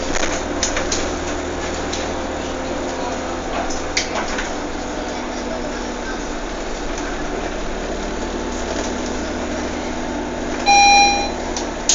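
Steady background rumble and hiss with a few faint clicks, broken near the end by a single loud beep lasting about half a second.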